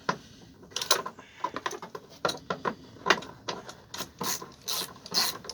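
Husky extendable ratchet with an 8 mm socket clicking in short, irregular runs with light metal rattles, as the bolts are worked.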